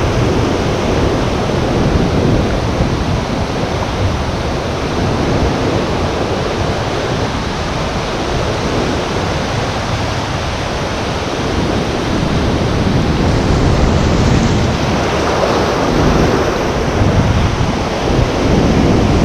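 Ocean surf breaking and washing in a continuous rush of water, with wind buffeting the microphone.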